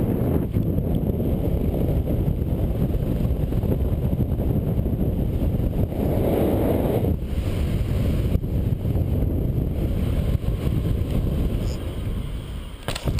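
Wind rushing and buffeting on the helmet-camera microphone of a BASE jumper flying under canopy. It swells briefly about halfway through, then dies down near the end as he comes in to land.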